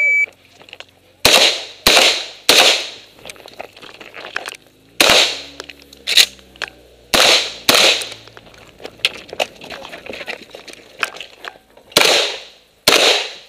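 A shot timer's short start beep, then a Saiga 12 semi-automatic 12-gauge shotgun firing about nine shots in quick pairs and triplets, with small knocks between the strings.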